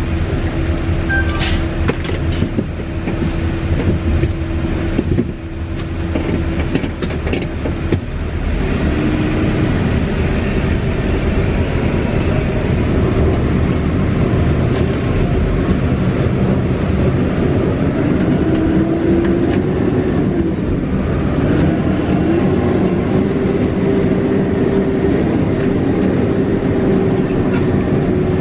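Mitsubishi Fighter truck's turbocharged diesel engine, heard from inside the cab while driving over a rough dirt road. There are knocks and rattles from the cab in the first few seconds. The engine gets louder about eight seconds in, and its pitch rises and falls near the end as it works and eases off.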